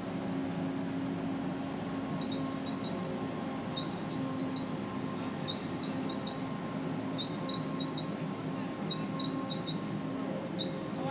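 Steady low mechanical hum, with small clusters of short, high chirps repeating about every second.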